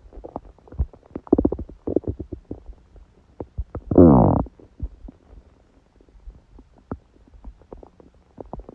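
A woman's stomach growling and gurgling during her period: irregular bubbling gurgles and small pops, with a loud, drawn-out growl that wavers in pitch about four seconds in.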